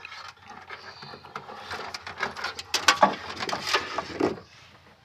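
Rustling and clicks of hands handling a thin electrical wire and plastic trim in a car trunk as the wire is routed along the wiring harness, with a run of louder scrapes and knocks around three to four seconds in.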